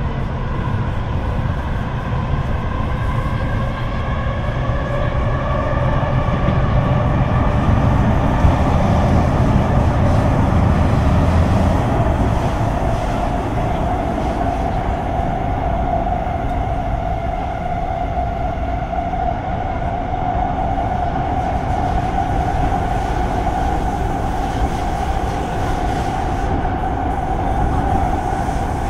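Kawasaki C151 metro train running, heard from inside the carriage: a heavy low rumble of wheels on rail, with a whine from the GTO chopper traction equipment that rises in pitch as the train gathers speed. After about twelve seconds the rumble eases and one tone holds on, rising slowly.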